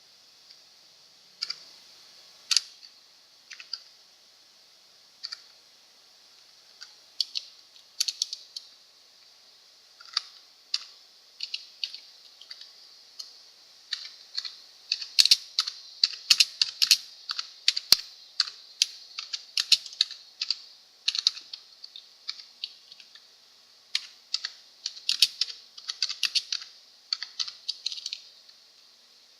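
Computer keyboard being typed on: irregular key clicks, a few scattered at first, then quick runs of keystrokes about halfway through and again near the end.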